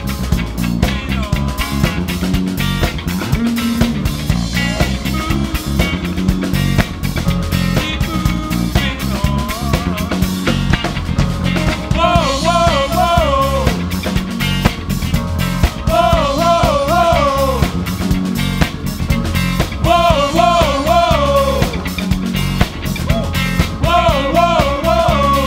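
Live funk band playing with electric guitars, bass and drums. About halfway through, a male lead vocal comes in, singing short phrases about every four seconds over the groove.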